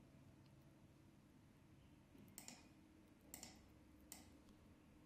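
Near silence: a faint low room hum with a few soft computer clicks, about two and a half, three and a half and four seconds in, as a connector is drawn between blocks in the software.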